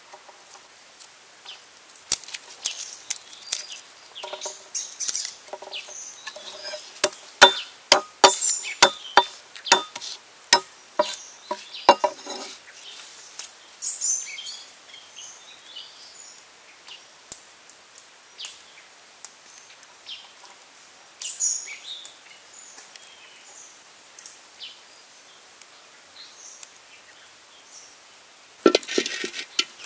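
Sharp knocks and clicks of hand food preparation with a knife and garlic on a wooden cutting board, densest in a run about a third of the way in, with birds chirping in the background. A louder clatter comes near the end.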